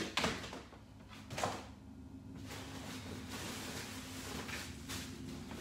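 A few short knocks and clatters of objects being handled, the loudest about a second and a half in, then a steady background noise with a faint low hum.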